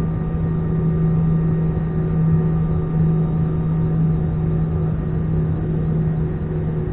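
Airbus A320-214's CFM56-5B turbofan engines heard inside the cabin while taxiing at low power: a steady hum with a strong low drone and fainter higher tones.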